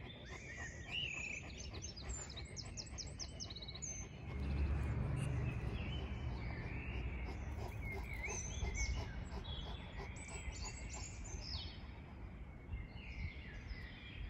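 Several birds chirping and trilling at dawn as they wake up: short high chirps and quick rattling trills throughout. A low rumble comes in about four seconds in and is the loudest sound for several seconds.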